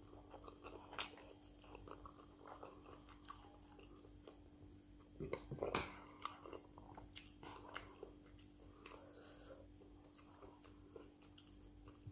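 Close-up chewing and biting of a mouthful of rice and stew with meat: soft wet chews and small crunches, with a couple of louder clicks about five to six seconds in. A faint steady hum runs underneath.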